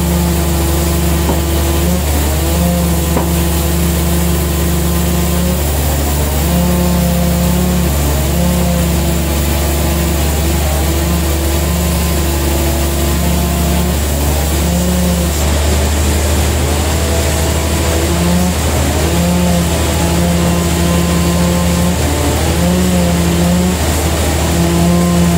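Large band sawmill's machinery running steadily, not cutting: a constant low drone with a pitched hum that drops in and out every second or two.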